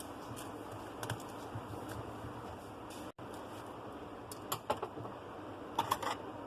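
Light clicks and taps from handling a smartphone and small repair tools, a few scattered early and two quick clusters near the end, over a steady background hiss, with a momentary dropout just past halfway.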